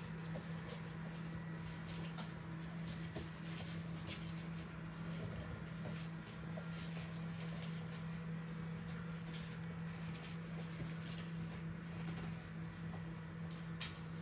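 Paper rustling and crinkling as rolled paper tubes are handled and a sheet is rolled into a tube, in irregular short bursts over a steady low hum.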